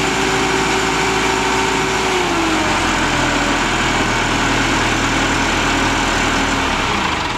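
Diesel engine of a 1988 Caterpillar CS-433B single-drum compactor running steadily, with a tone that drops in pitch about two seconds in as the engine slows. Near the end the engine's pitch falls again and the sound begins to die away.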